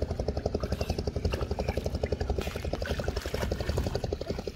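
A small engine running steadily with a fast, even chug of about a dozen beats a second.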